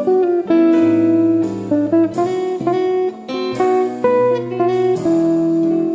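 Instrumental background music of plucked guitar notes over a low bass line, moving in a light, jazzy melody.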